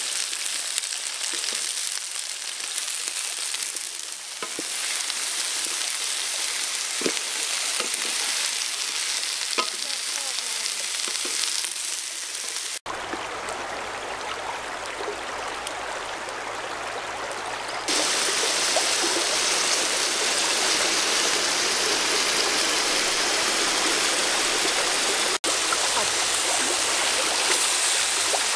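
Chopped vegetables and shrimp sizzling as they are stir-fried in a large metal wok and stirred with a spatula, with a river's flowing water behind. The hiss changes at edits and gets louder about two-thirds of the way through.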